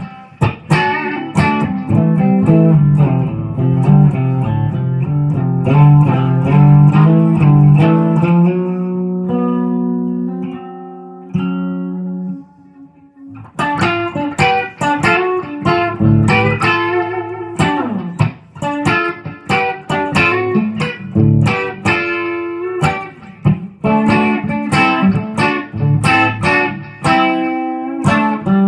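1996 Epiphone Les Paul Custom electric guitar with Gibson 490 humbucking pickups, played in quick picked riffs and chords. About nine seconds in, a few held notes ring out and fade, dying away briefly near the thirteen-second mark before fast picking starts again.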